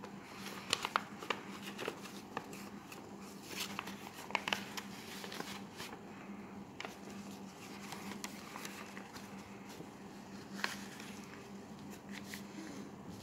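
A sheet of paper being folded and creased by hand, rustling and crackling, with sharp crinkles thickest in the first half and only a few later on.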